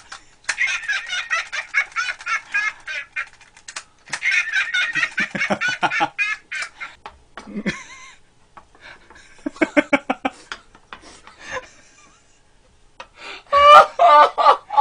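People laughing hard in repeated high-pitched, cackling bursts, with the loudest burst near the end.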